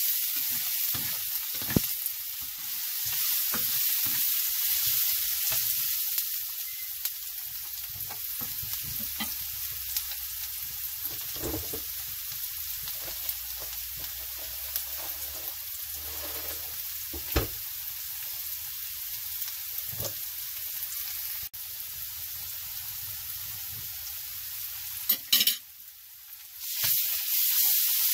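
Chopped onions and mustard seeds sizzling steadily in hot oil in a non-stick frying pan, stirred with a nylon spatula that scrapes and clicks against the pan now and then. The sizzle drops away briefly near the end, with a few sharp clicks.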